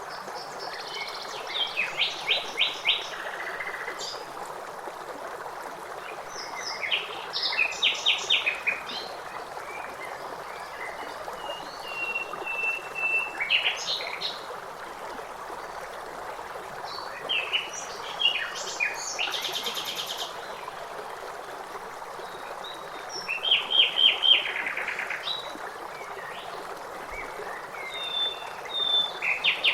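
Songbirds singing short phrases of rapidly repeated notes every few seconds over the steady rush of a stream.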